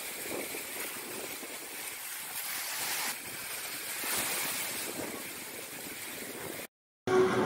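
Sea surf breaking and washing up the shore, a steady rush of waves. It cuts off suddenly near the end, and a louder sound with steady pitched tones follows.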